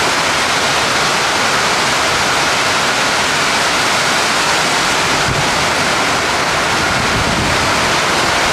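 Typhoon wind with torrential, wind-driven rain: a loud, steady rushing noise with no letup.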